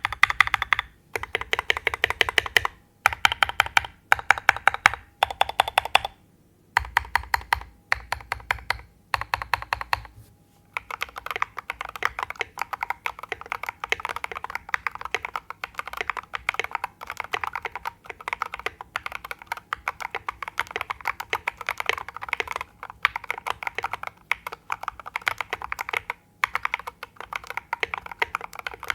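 Mechanical keyboard with Jwick Ultimate Smokey linear switches lubed with Krytox 205g0 and tall SA-profile keycaps, being typed on. About ten seconds of short, quick bursts of keystrokes with brief pauses between them, then steady continuous typing.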